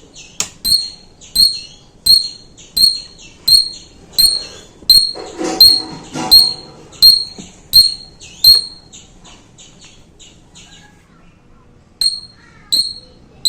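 Wireless motion-detector security alarm beeping: a string of short, high-pitched beeps, about one and a half a second, that stops about 8.5 seconds in and starts again about 12 seconds in.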